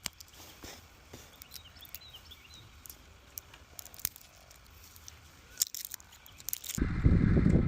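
Quiet open-air ambience with scattered light clicks and knocks and a few faint high bird chirps. About seven seconds in, a loud low rumbling noise starts abruptly.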